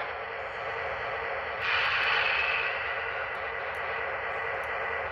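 Lionel RailSounds 5.0 diesel prime mover sound playing from an O-gauge MTH DDA40X model locomotive as it runs along the track. The steady engine sound gets louder about one and a half seconds in.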